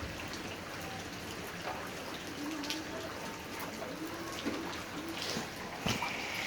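Steady rain falling, with scattered taps of individual drops.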